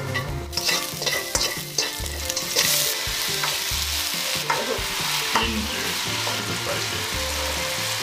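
Shredded potato stir-frying in hot oil in a nonstick wok, turned with a wooden spatula: a sizzle that grows much louder about two and a half seconds in, as the potato goes into the oil, then holds steady, with a few light knocks of the spatula.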